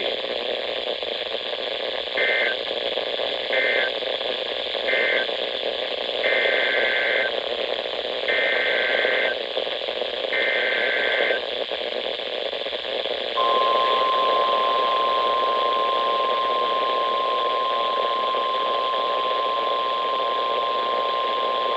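Emergency Alert System data bursts over radio static: three short warbling bursts, the end-of-message code closing one alert, then three longer bursts, the header of the next alert. About 13 s in, the steady 1050 Hz NOAA Weather Radio warning alarm tone begins and holds.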